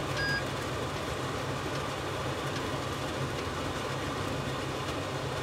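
A short electronic beep from the Tefal OptiGrill Elite's touch control panel, just after the start, as a button is pressed. A steady low hum and hiss runs underneath.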